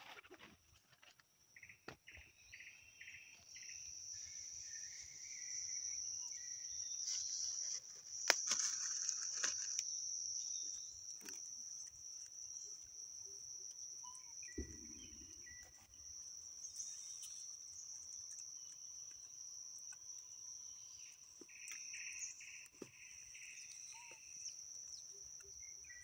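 Steady high-pitched drone of insects, with two short spells of rapid pulsing and scattered small clicks, and a dull thump about halfway through.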